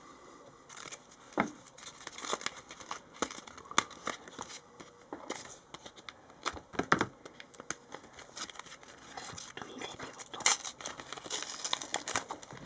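Panini Adrenalyn XL trading cards and their paper or plastic wrapping being handled: irregular small clicks, taps and crinkling, with a few louder knocks.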